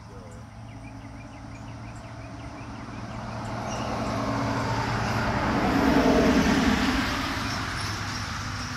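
A car driving past: engine hum and road noise swell, loudest about six seconds in, then fade away.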